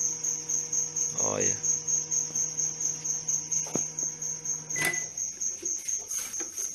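A cricket chirping in a fast, steady pulsing trill, over a low steady electrical hum. A little past halfway, a click and a short beep as a microwave oven's keypad button is pressed.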